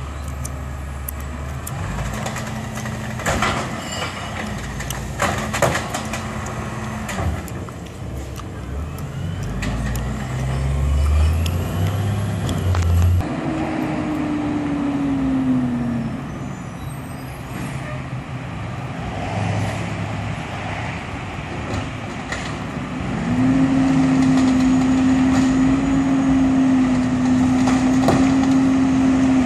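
Amrep automated side-loader recycling truck working: its diesel engine runs throughout, with a few sharp knocks a few seconds in and a falling whine about halfway. In the last six seconds the engine runs at a steady, louder, higher pitch.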